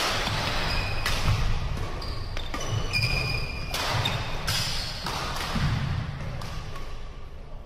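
Badminton rackets striking shuttlecocks in rallies, a quick irregular series of sharp hits, mixed with short high squeaks of shoes on the wooden court floor.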